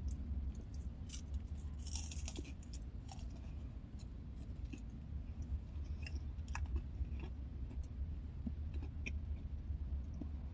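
A person chewing a snack of crackers and summer sausage, with soft, scattered small crunches and mouth clicks over a steady low hum.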